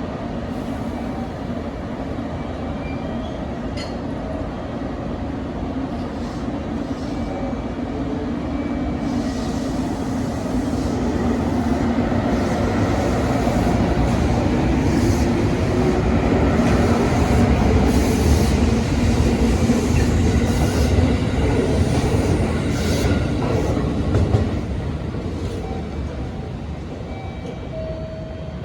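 JR Kyushu 783 series electric train pulling out and running past: a steady motor hum with wheels clattering over the rail joints. It grows louder to a peak about two-thirds of the way through, then fades as the train moves away.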